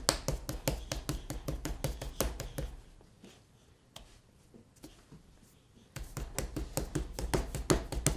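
Small hands rapidly slapping and patting a ball of soft pretzel dough on a floured wooden counter, about five dull smacks a second. The slapping stops for about three seconds in the middle, then starts again.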